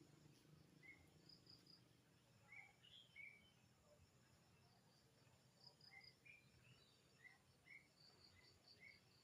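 Near silence: faint outdoor ambience with scattered short high chirps, some coming in quick groups of three or more, typical of insects and small animals calling.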